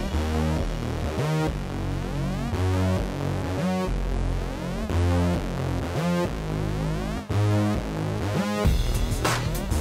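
Electronic background music: a synthesizer with repeated sweeping figures over a heavy bass line, with a drum beat coming in near the end.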